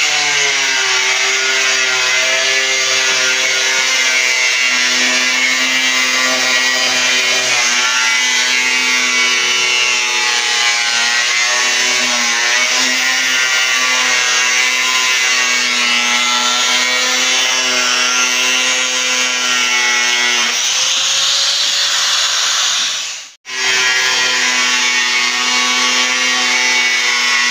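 Corded angle grinder running steadily while cutting a sheet of Lexan polycarbonate, a steady motor whine with a hiss from the cut. The sound turns rougher for a couple of seconds, drops out for a moment and resumes.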